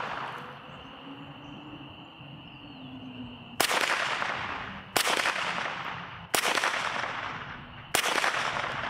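Four .22 LR rifle shots, spaced about a second and a half apart and starting a few seconds in, each trailing off in a long echo.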